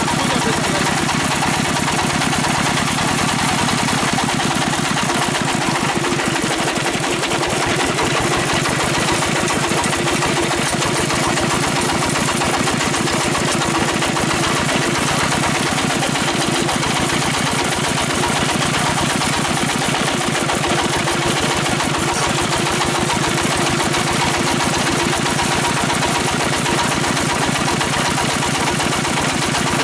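Dompeng-type diesel engine running steadily at a constant speed, with a fast, even firing beat.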